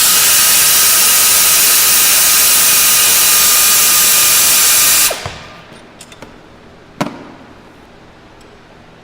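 Pneumatic air ratchet running steadily with a loud hiss of exhaust air as it backs out a 15mm alternator mounting bolt, stopping abruptly about five seconds in. A single sharp metallic knock follows about two seconds later.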